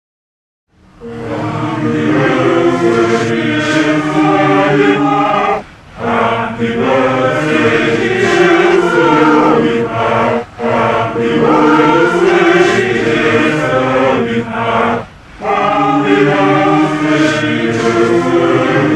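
Several voices singing together in chorus, in phrases of about five seconds with short breaks between them, starting about a second in.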